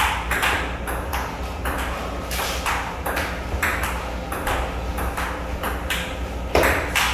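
Table tennis rally: the celluloid ball clicking off the paddles and bouncing on the table in a quick even rhythm, about three sharp knocks a second, with a steady low hum underneath.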